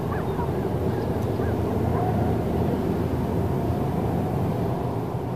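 Airliner coming in to land: a steady low engine drone.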